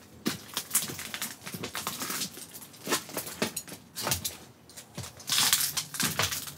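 Footsteps crunching and crackling irregularly over broken debris on the floor of a derelict railway carriage's corridor, with a louder rustle a little past five seconds in.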